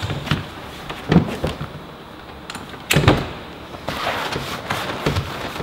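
Folding transom bench seat being pulled out and set up: several sharp clunks and knocks as its fold-down legs and seat base are moved into place, the loudest about three seconds in, with some rubbing and sliding in between.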